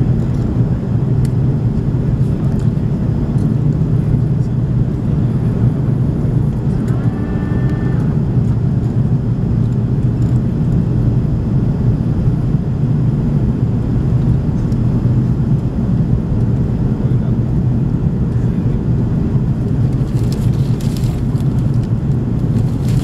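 Steady cabin noise of an Airbus A330 airliner descending on approach to land: engine and airflow noise heard from a window seat over the wing, a constant low rumble.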